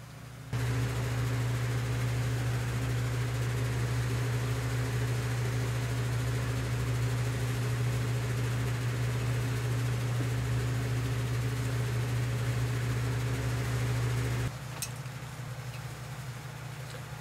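An electric motor-driven machine switches on about half a second in and runs with a steady hum over a rushing noise, then shuts off abruptly near the end. A couple of faint clicks follow.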